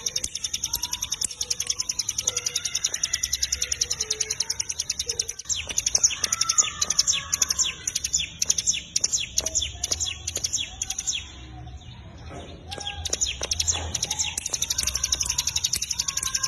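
Ciblek gunung (cigun) singing gacor: a fast, unbroken train of high chips, with a short break about eleven and a half seconds in. Softer, lower chirps run underneath.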